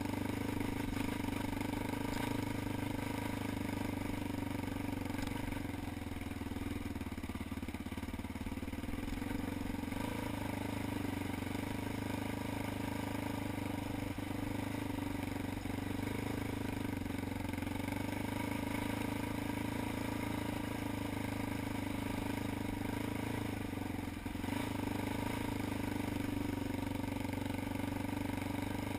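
ATV engine running at a steady, even speed during a trail ride.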